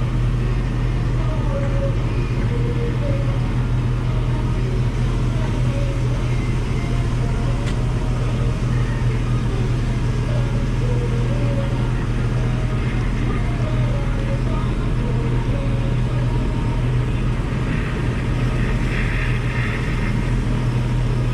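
Combine harvester running steadily at work in soybeans, heard from the cab: a continuous engine and machinery drone with a strong low hum.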